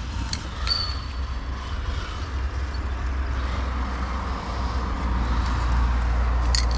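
Road traffic on a wide avenue: a motor vehicle's low engine rumble and tyre noise, growing louder toward the end. A few light clicks sound near the start and again near the end.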